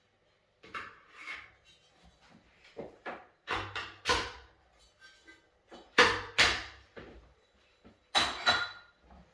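Rotor 30 crank turned by hand in a freshly installed C-bear BB30A ceramic bottom bracket: a series of short spins and handling sounds, each starting sharply and fading, the loudest about six seconds in.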